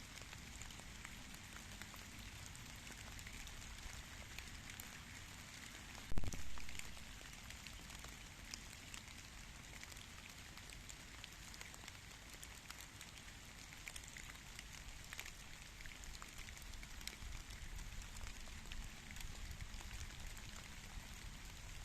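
Steady rain with many small, scattered drop ticks. About six seconds in there is a single loud thump with a short tail.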